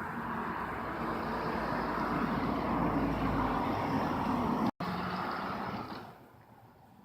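An engine running steadily. The sound cuts out completely for an instant about three-quarters of the way through, then fades away near the end.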